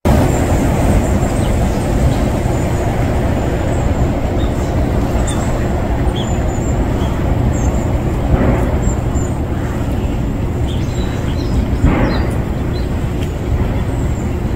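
Steady low outdoor rumble throughout, with faint short high chirps here and there.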